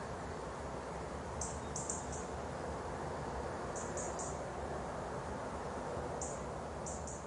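Steady background hiss with short, very high-pitched chirps that come in quick runs of three or four, a few times.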